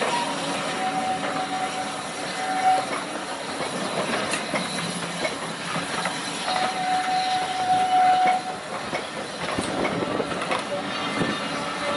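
Passenger coaches of a steam-hauled train rolling past, their wheels clicking over the rail joints. A thin, steady squeal rises over the rumble twice, about a second in and again after six seconds.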